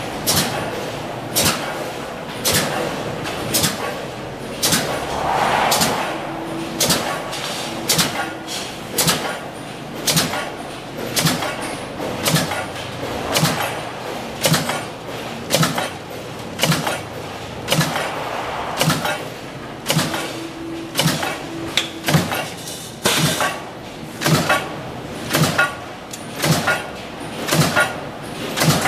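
Power stamping press punching stainless steel strip through a progressive die, each stroke a sharp metallic bang repeating evenly about every three-quarters of a second over a steady machine hum.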